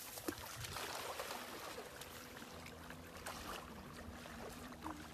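Shallow seawater lapping and splashing at the shoreline as a dachshund wades in and swims out, with a few louder splashy patches.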